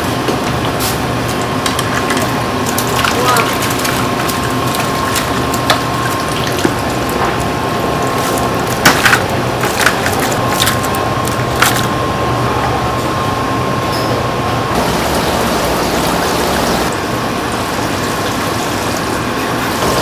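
Steady kitchen noise: a constant hiss with a thin steady whine that stops about two-thirds of the way through, and a few sharp clinks and clatters around the middle.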